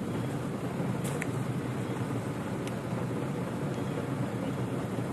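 Steady low rumbling background noise, with a few faint short clicks about a second in and again near three seconds.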